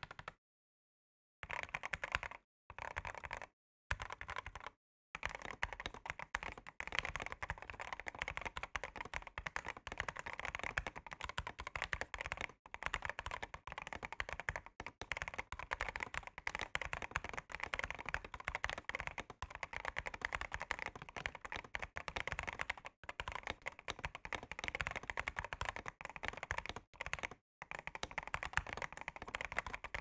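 Fast typing on a Newmen GM326 75% mechanical keyboard with Jixian red switches and thick XDA PBT keycaps: a rapid, continuous patter of keystrokes. It comes in three short bursts broken by abrupt silences in the first few seconds, then runs on steadily.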